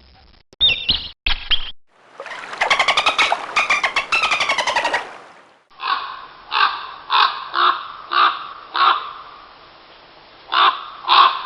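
Bird calls: a couple of short calls, then a rapid chattering series, then a crow cawing, a run of harsh caws about two a second with a brief pause before more.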